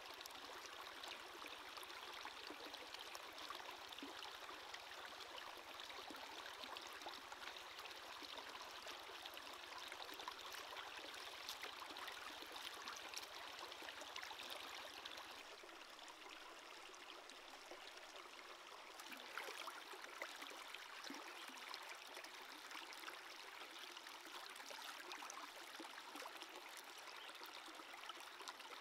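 Faint sound of shallow stream water running over rocks, with small splashes as hands rinse and clean a squid in the current.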